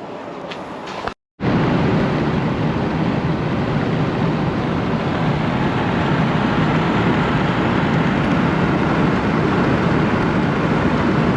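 Loud, steady rumble of road and wind noise from a vehicle driving at speed. It starts a little over a second in, after a brief break.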